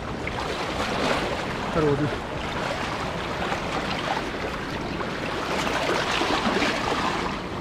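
Seawater washing and splashing over shoreline rocks as a wet cast net is hauled in through it, swelling about a second in and again near the end.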